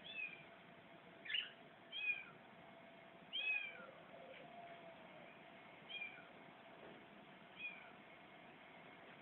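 A small animal calling: short, high calls that fall in pitch, about six of them, spaced a second or two apart, over faint background noise.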